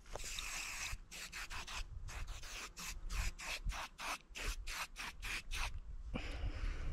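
Aerosol insect repellent sprayed from an Insect-Tect can: one continuous hiss of about a second, then a rapid run of short spray bursts, about four a second.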